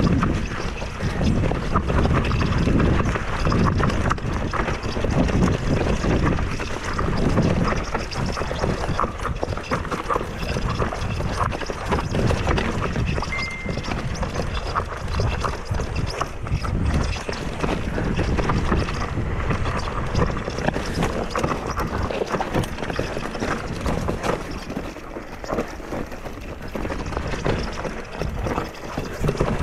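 Ibis Mojo HD4 mountain bike descending a loose rocky trail at speed: tyres crunching over stones and the bike rattling continuously, with a low wind rumble on the microphone. One brief high squeak comes about halfway through.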